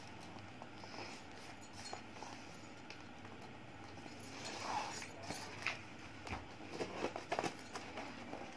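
Faint rustling and crinkling of a parcel's packaging being handled and opened, with scattered small clicks and crackles, a few louder ones in the second half.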